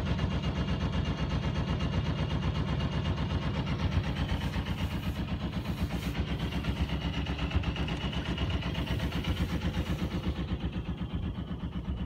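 A sailboat's inboard auxiliary engine running steadily, with a rapid, even pulse.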